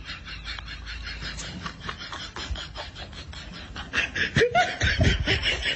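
Person laughing in quick, repeated breathy bursts, louder in the last second and a half with a couple of voiced whoops.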